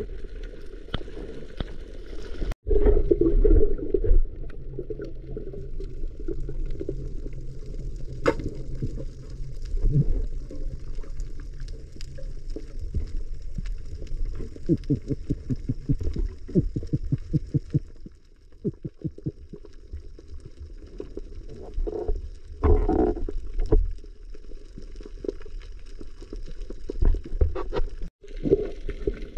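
Underwater ambience recorded by a camera below the surface: a muffled low rumble of moving water with scattered clicks and crackles, dropping out briefly twice at cuts.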